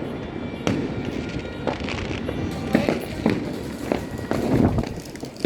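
Fireworks going off: sharp bangs about once a second, with crackling between them.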